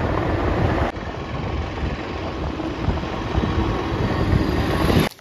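Wind and road noise from a moving vehicle, a steady rushing that dips briefly about a second in and cuts off suddenly near the end.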